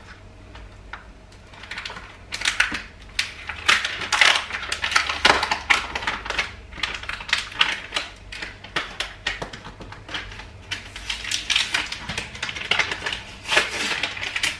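Quick, irregular clicks, taps and rattles of things being handled on a kitchen counter.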